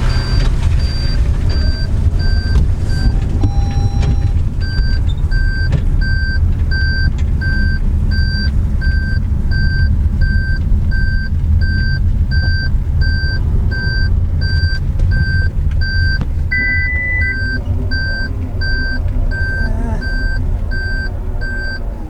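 A vehicle's reverse-gear warning beeps about twice a second over a steady low engine rumble, with a short pause about three seconds in. A brief steady tone sounds about three quarters of the way through.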